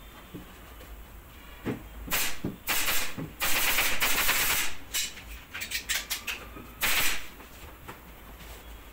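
Pneumatic staple gun firing a run of sharp, rapid shots with air hiss, then a few single clicks and a last short burst, as an upholstery sheet is stapled onto a headboard frame.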